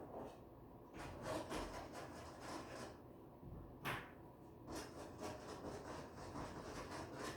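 Irregular scraping and rubbing noises, with a sharp click a little under four seconds in.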